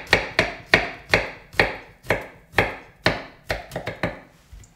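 Kitchen knife thinly slicing garlic cloves on a wooden cutting board: a steady run of sharp knife strikes on the board, about two to three a second, stopping a little after four seconds in.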